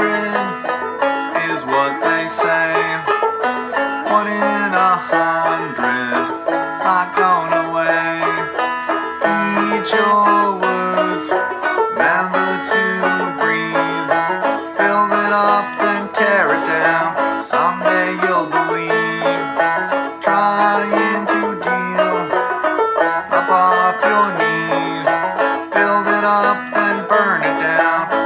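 Gold Tone CC-Carlin 12 open-back five-string banjo played clawhammer style: an old-time tune in a steady rhythm of rapid plucked notes.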